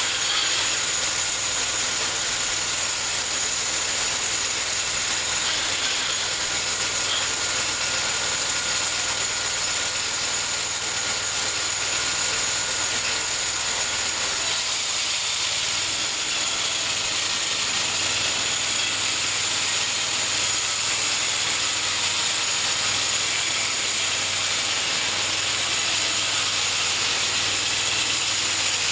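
Homemade bandsaw mill running steadily as it saws a cherry log, a continuous mechanical drone with a hissing high end. A thin whine in it drops out about halfway through.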